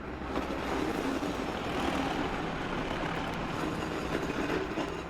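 Sound-effects recording of a railway train running along the track, a steady rumbling clatter, played back from a vinyl sound-effects record.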